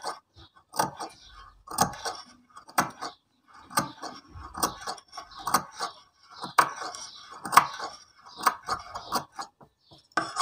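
Scissors snipping small notches into the curved, stitched seam allowance of a cotton face mask, about one snip a second.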